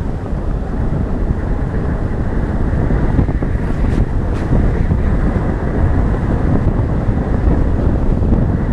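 Wind buffeting the microphone of a hood-mounted camera, over the low rumble of a vehicle driving along a gravel dirt road.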